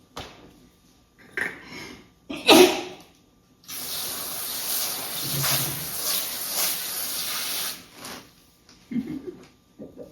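A few knocks and rustles, the loudest about two and a half seconds in, then a steady spraying hiss for about four seconds that cuts off.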